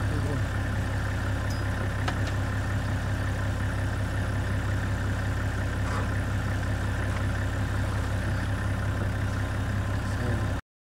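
An engine idling steadily, cutting off suddenly near the end.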